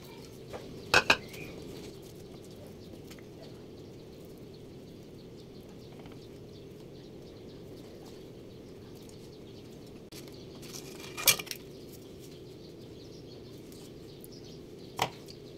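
A few sharp clinks and knocks of a plate being handled on a stone kitchen counter: a double knock about a second in, the loudest near eleven seconds, and another near the end, over a steady low hum.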